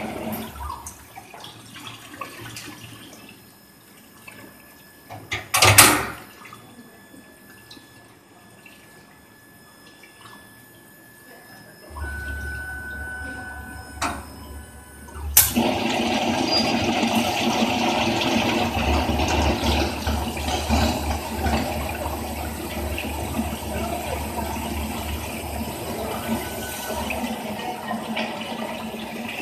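Induction hardening machine working a small shaft. About 6 s in comes a short loud burst of noise. About 12 s in a low hum and a steady high whine start, and about 15 s in the water quench spray comes on with a sudden gush and keeps rushing.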